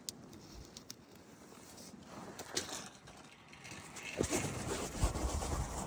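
Footsteps crunching through deep snow, faint at first and becoming louder and more frequent from about four seconds in, with a few scattered clicks.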